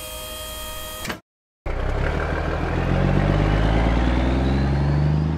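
Cartoon truck engine sound effect: after a steady humming tone cuts off about a second in and a brief silence, the engine starts up and pulls away, its pitch rising steadily with a thin whine climbing above it.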